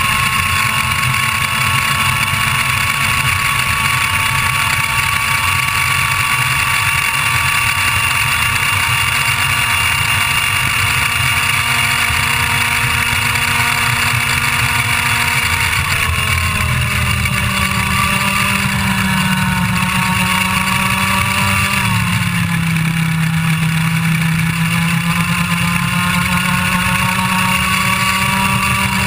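IAME Leopard 125cc two-stroke kart engine at high revs under power. The pitch holds high, falls about halfway through as the revs drop for a corner, wavers, and climbs again near the end as it pulls back up.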